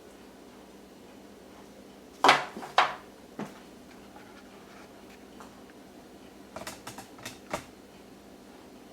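Knocks and clicks of small objects being handled: two sharp knocks about two seconds in, a lighter one soon after, then a quick run of lighter taps and clicks near the end, over a faint steady hum.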